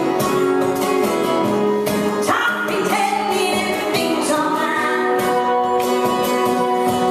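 A woman singing live with a strummed acoustic guitar, in long held notes with an upward slide about two seconds in.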